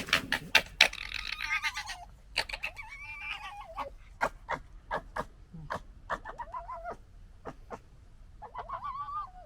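Red foxes gekkering: sharp throaty clicks, thickest in the first second, interleaved with several wavering, whining cries each about a second long. This is the stuttering chatter foxes make in a squabble.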